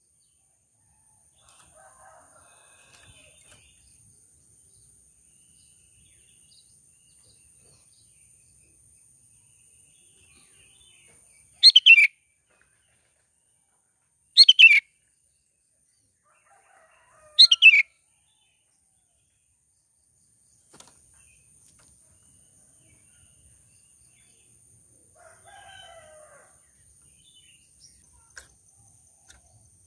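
Sooty-headed bulbul giving three loud, short calls a few seconds apart near the middle, each a quick falling note. Fainter chirps come a couple of seconds in and again near the end.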